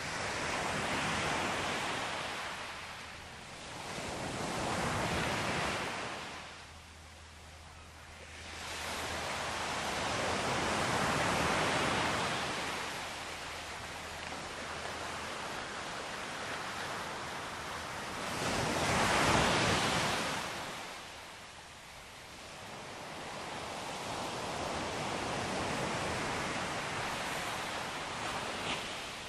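Sea waves washing onto a beach, rising and falling in about five slow swells, the loudest a little past the middle.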